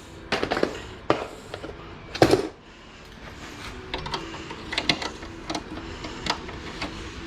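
Snowmobile body panel being pried off and handled by hand: a string of irregular clicks and knocks as its clips let go and the panel is moved, the loudest knock about two seconds in.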